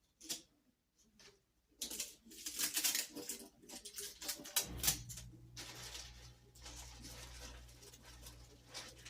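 Handling noises from assembling the plastic parts and hose of a portable shampoo bowl: irregular rustling and clicking. A steady low hum starts about halfway through.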